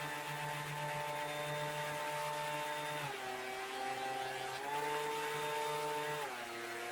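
An electric woodworking power tool's motor running with a steady whine, its pitch sagging twice for a second or so as it takes load from cutting wood, then recovering.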